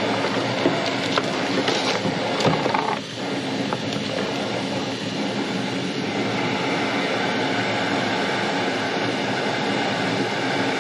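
A steady mechanical drone with a low hum running under it, like a small engine running. A few light knocks and rustles of a cardboard box being handled come in the first three seconds.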